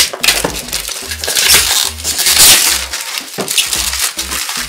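Clear plastic shrink-wrap crinkling and rustling as it is torn and peeled off a cardboard puzzle-cube box, with small clicks of the box being handled. The loudest crinkles come in two spells, a bit over a second in and again about two and a half seconds in.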